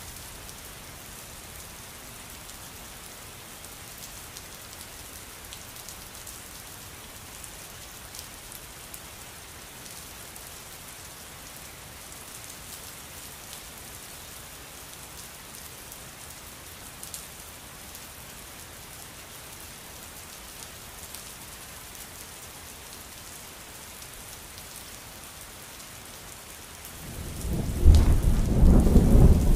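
Steady rain falling in an even hiss. Near the end a loud, deep rumble of thunder breaks in and keeps rolling.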